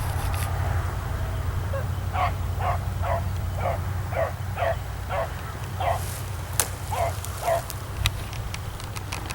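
Beagles barking on a rabbit's trail: a run of short, repeated barks at about two a second that stops near the end. A few sharp cracks follow, over a steady low rumble.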